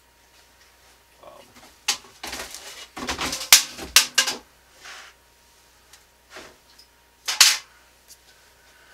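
Plastic drafting triangle being slid over paper and set down on a drawing table: a cluster of sharp clacks and a short scrape about two to four seconds in, then one more loud clack near the end.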